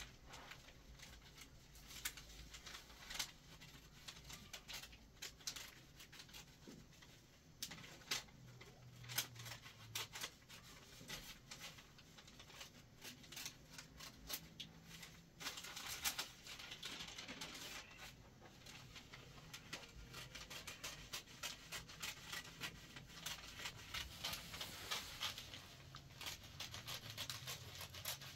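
Faint, irregular clicks and light taps, scattered throughout.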